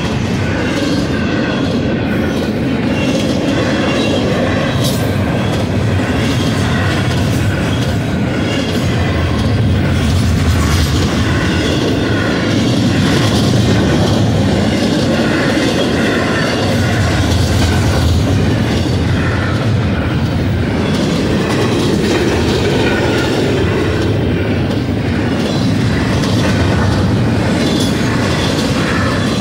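Double-stack intermodal container train rolling past at close range: a loud, steady rumble of steel wheels on the rails.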